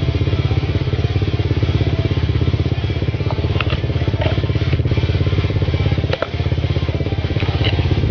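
Single-cylinder sport quad engine running steadily close to the microphone, a fast even thumping, with a few sharp clicks and knocks from the ride between about three and five seconds in and again around six seconds, where the level briefly dips.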